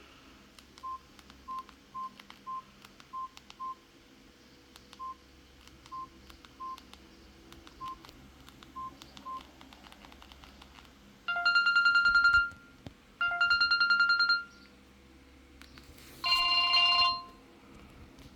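Samsung GT-E1200 mobile phone: about a dozen short single-pitch keypad beeps with faint button clicks, then three loud, buzzy ringtone snippets about a second and a half long each, near 11, 13 and 16 seconds in, the last a different tone from the first two.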